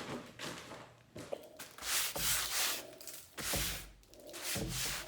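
Dusty salvaged stone windowsill being rubbed off: several rough scraping strokes, each about half a second to a second long, with short pauses between them.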